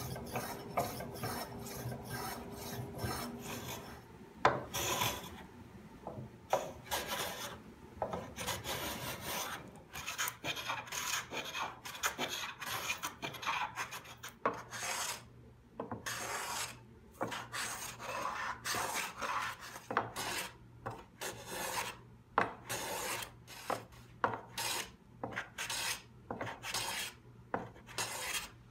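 Wooden hand plane cutting shavings from a mahogany panel in quick repeated strokes, each one a short rasping hiss, about one to two strokes a second.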